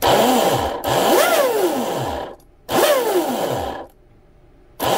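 Blackjack 24 RC boat's brushless motor spun up in short throttle blips, three and the start of a fourth, each rising in pitch and falling away as it coasts down. Over it runs a loud grinding from a bearing, almost like metal on metal: the bearing has been noisy since the boat sank.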